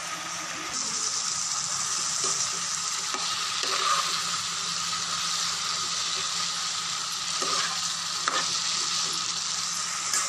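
Fried okra and tomato-onion masala sizzling in a non-stick pan as a spatula stirs them, with a few scrapes and knocks of the spatula against the pan. The sizzle grows louder about a second in.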